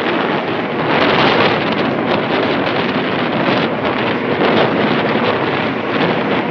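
Loud, steady rushing noise of wind buffeting the microphone, rising and falling in gusts.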